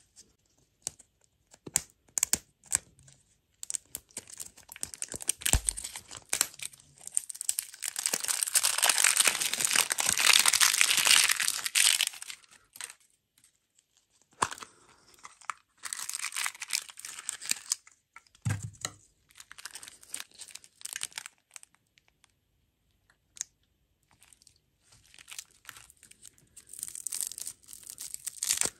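Crinkling and tearing of printed plastic lollipop wrappers being peeled off by hand, in several stretches with short pauses between. The longest and loudest tearing comes about a third of the way in, and scattered clicks and taps fall in the first few seconds.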